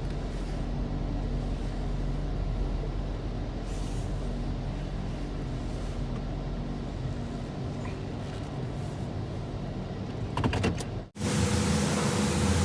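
A car's engine running steadily with a low hum, and a few clicks near the end. About eleven seconds in the sound cuts off sharply and gives way to a louder, noisier steady sound.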